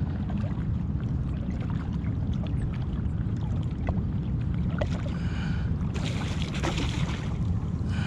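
Steady low wind rumble on the microphone over water, with a brief hiss of splashing water about six seconds in.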